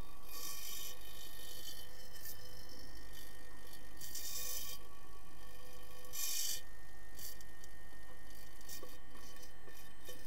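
Swimming-pool sound heard underwater through a camera: a steady low hum with several steady tones, broken by short bursts of hiss, the first about a third of a second in and lasting over a second, then around four seconds and around six seconds.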